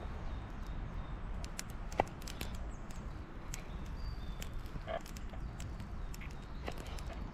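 Mora Garberg bushcraft knife slicing raw meat on a wooden cutting board. Scattered light clicks come from the blade meeting the board, with one sharper knock about two seconds in, over a steady low rumble.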